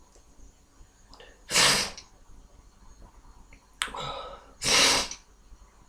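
Two sneezes about three seconds apart from a man with a head cold, each a short, loud, breathy burst after a quicker intake, with little voice in them.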